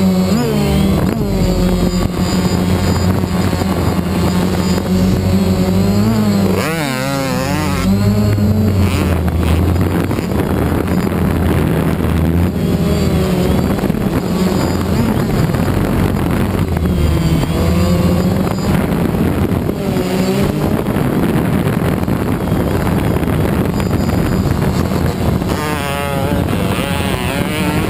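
Motocross dirt bike engine revving up and down again and again, its pitch wavering and sweeping, over a steady low hum.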